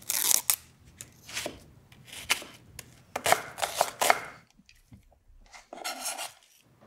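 Chef's knife chopping and dicing a red onion on a wooden end-grain cutting board: irregular knife strikes on the board, with a brief scrape near the end.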